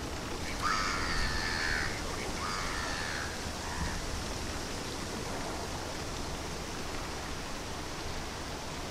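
Steady hiss of wind on the microphone by open water, with a brief higher-pitched call about a second in and a shorter one near three seconds.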